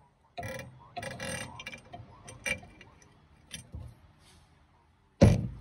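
Metallic clicks and clinks as the centre bolt and nut at the back of a truck's 30/30 spring brake chamber are worked by hand, a few separate ticks spread over the first four seconds. A loud knock about five seconds in.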